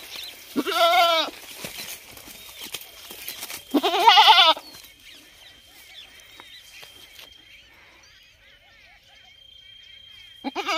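Male goat bleating close to the microphone: two long, wavering bleats in the first half, then a quiet stretch, and a third bleat starting near the end.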